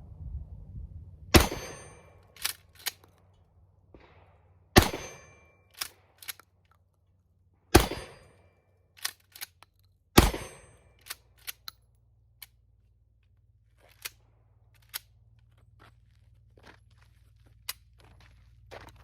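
Shotgun firing four shots about three seconds apart, each a sharp crack with a short echo, with lighter clicks and knocks of the gun being handled between shots and after the last.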